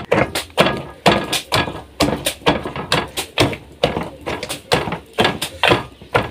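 Wire potato masher pounding cooked food in a stainless steel bowl: a steady run of knocks and metallic clinks, about two or three a second.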